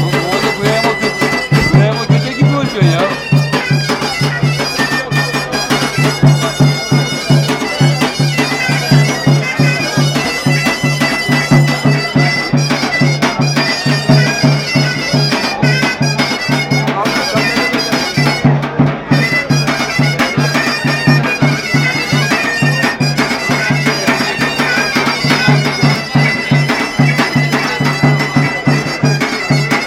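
Tulum (Black Sea bagpipe) playing a fast, continuous folk tune over a steady low note.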